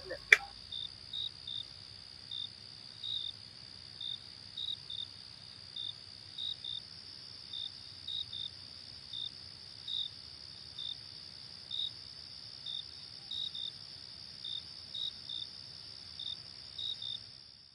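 Crickets chirping at night: a steady high trill with separate chirps repeating unevenly about twice a second, fading out at the very end. A single sharp click sounds just after the start.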